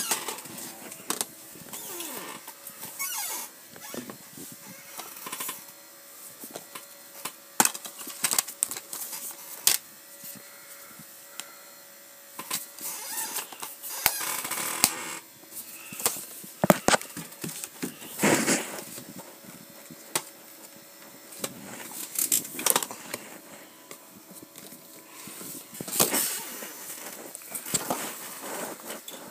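Plastic DVD cases being handled and shuffled through: irregular clacks and knocks as the cases bump together, with rustling in between.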